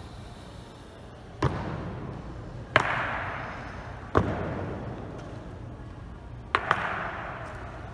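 Honor guards' boots striking the floor in a slow, stamped ceremonial march: sharp single strikes every second or so, the last a quick double, each ringing on in the echo of a large stone hall.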